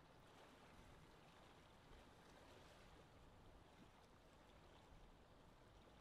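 Very faint lake-shore wind ambience: a steady wash of wind noise with a low rumble, softly swelling, with faint water sounds mixed in.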